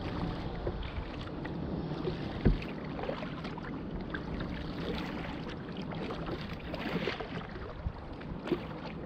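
Paddling a Pelican Cove 100XP kayak: paddle strokes dipping and splashing in the water, over a steady rush of wind on the microphone. One sharp knock stands out about two and a half seconds in.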